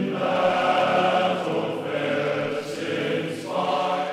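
Background music of a choir singing long, slow held chords, with the chord changing about three and a half seconds in.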